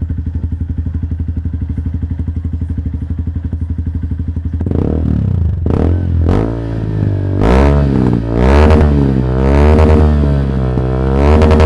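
Honda Bros motorcycle's single-cylinder engine running through a loud Coyote Roncar TRS Offroad aftermarket exhaust. It idles steadily, then from about five seconds in it is revved in a series of throttle blips, the pitch rising and falling about six times.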